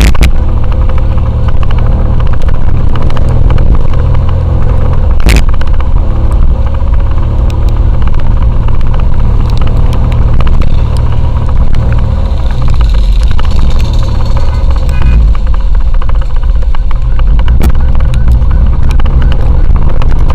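Motorcycle on the move: a steady, loud low rumble of engine and road or wind noise, with a sharp knock about five seconds in.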